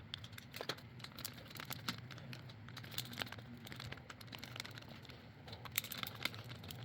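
Quiet, irregular small clicks and taps of handling the plastic GFCI plug housing and its screws while it is closed back up.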